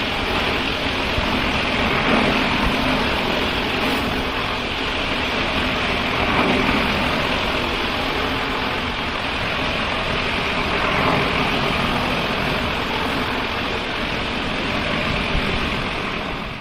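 Tile-and-grout cleaning machine running steadily with a loud, even hissing rush.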